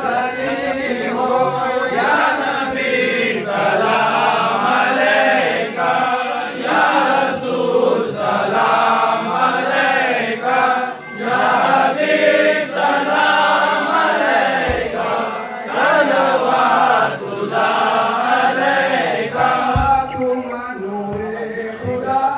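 A crowd of men chanting together in unison, many voices overlapping in a continuous devotional chant. Two brief dull thumps come in the second half.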